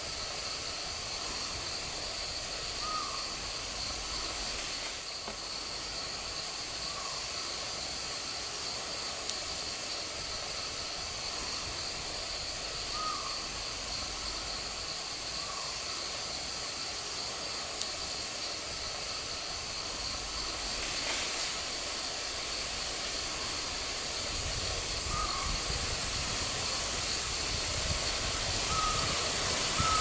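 Forest canopy ambience: a steady high hiss, with short bird calls every few seconds. Wind rumbles on the microphone in the last few seconds.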